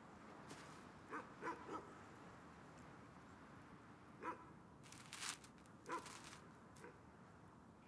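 A dog barking faintly: three quick barks about a second in, then single barks about four and six seconds in. A brief rustle of leaves and earth comes between the last two.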